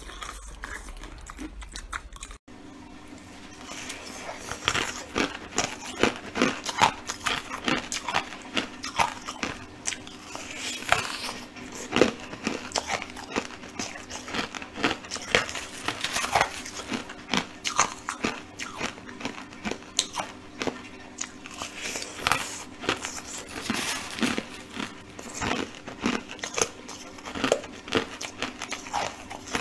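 Close-up chewing of crushed coloured ice crystals: a dense run of sharp, crisp crunches, starting about two seconds in, over a faint steady hum.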